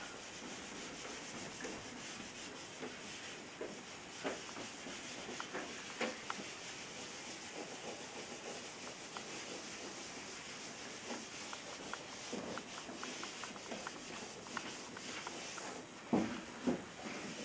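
Whiteboard being wiped clean by hand with a small eraser pad: a steady scrubbing hiss with small ticks as the pad drags over the board. A couple of dull knocks come near the end.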